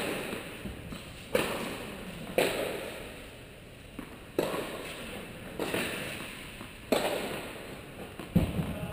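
Tennis ball impacts, racket strikes and bounces, coming about every one to one and a half seconds at an uneven pace. Each is a sharp pop that rings on and fades in the echoing indoor tennis hall.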